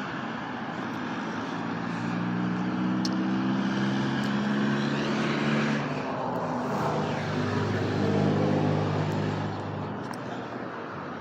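A car engine running steadily. Its hum changes about six seconds in and settles at a lower pitch until near the end.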